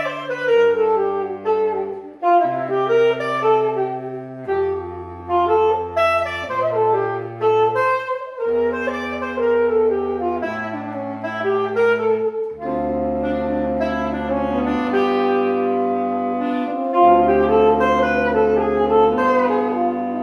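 Saxophone-led jazz quartet playing: a moving melody line over sustained low notes and chords that change every second or two.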